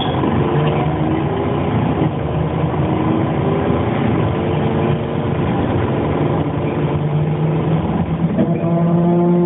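A 1998 Dennis Dart bus running with a weird steady hum made of several held tones over the engine noise. About eight and a half seconds in, the tones change pitch and become louder and steadier.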